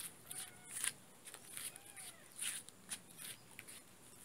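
Mother cat licking and grooming her nursing kittens: a run of short, soft, irregular rasps close to the microphone, with one or two faint thin cries in the background.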